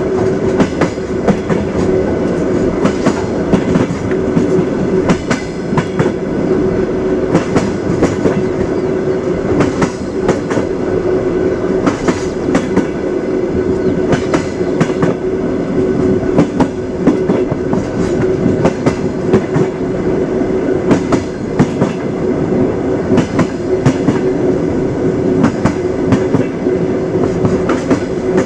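Train wheels clattering over the rail joints, many irregular sharp clacks over a steady rumble with a constant hum.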